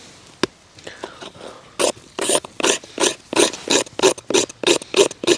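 Rhythmic rasping strokes of a blade on wood, about three a second, starting about two seconds in: wood being worked for tinder.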